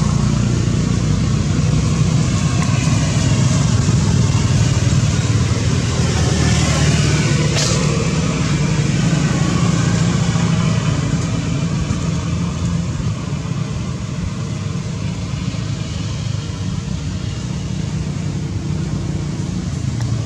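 An engine running steadily with a low hum, easing off slightly in the second half, with one short sharp sound about seven and a half seconds in.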